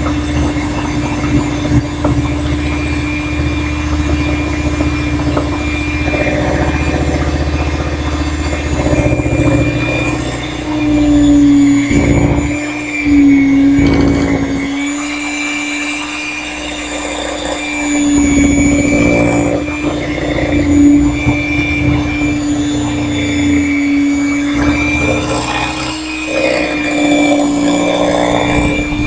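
Electric hand mixer running on high, a steady motor whine as its beaters whip cake batter in a glass bowl. The pitch sags a little a few times as the beaters drag through the batter.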